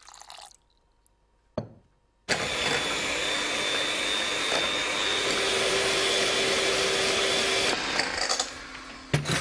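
Electric mixer whipping double cream with sugar and limoncello: after a single knock, the mixer starts abruptly about two seconds in, runs steadily with a high whine for about five seconds, then stops, followed by a few light clinks.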